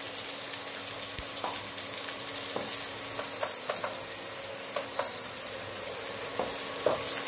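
Chopped onions and green chillies sizzling in hot oil in a non-stick frying pan, stirred with a wooden spatula. A few light ticks and taps stand out from the steady sizzle.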